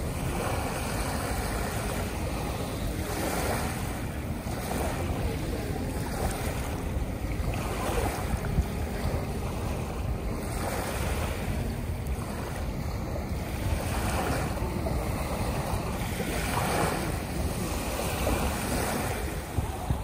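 Small bay waves lapping and washing onto a sandy shore, swelling every second or two, with wind rumbling on the microphone.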